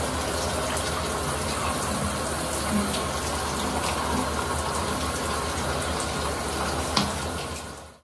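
Shower running: water spraying from an overhead showerhead in a steady rush, with a short knock about seven seconds in. The sound fades out near the end.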